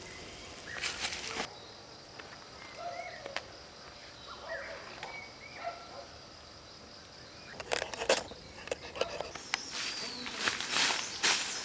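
Woodland ambience: footsteps crunching and rustling through dry leaves in bursts near the start and again over the last few seconds, over a steady high insect drone, with a few short bird calls in the quieter middle.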